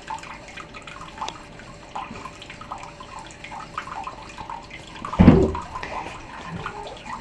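Thin stream of water running from a bathroom tap into a ceramic washbasin, splashing irregularly as a cat paws at it. A loud, deep thump about five seconds in.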